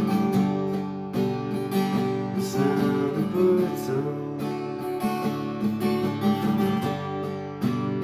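Strummed acoustic guitar playing a steady chord progression, an instrumental passage of a slow song.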